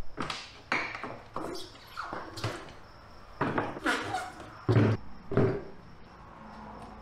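Tyres mounted on wheels being tipped over and dropped flat onto a stack on a wooden pallet: a string of irregular thumps and rubber scuffs.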